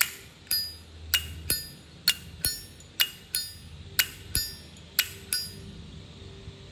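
Brass Zippo lighter lid being flipped open and snapped shut over and over: sharp metallic clinks, about a dozen in pairs roughly once a second, stopping about five and a half seconds in.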